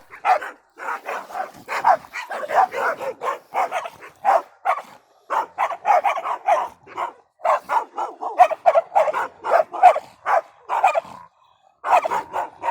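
Dogs barking in rapid runs of short, loud barks, several a second, broken by brief pauses.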